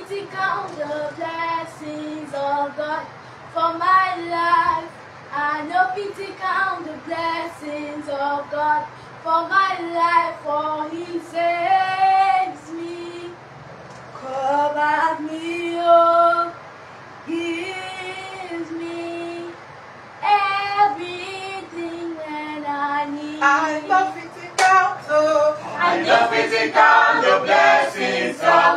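A girl singing a worship song alone and unaccompanied, in phrases with short pauses between them. About 26 seconds in, several other voices join in and the singing grows louder.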